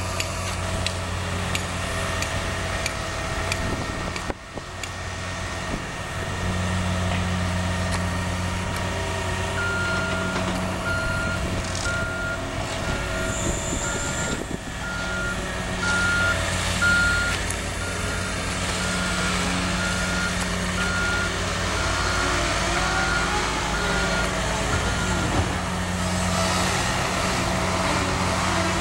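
Hitachi Zaxis 170W wheeled excavator's diesel engine running, strengthening and easing several times as it works the grab. A reversing alarm beeps steadily, a little under two beeps a second, from about ten seconds in until a few seconds before the end.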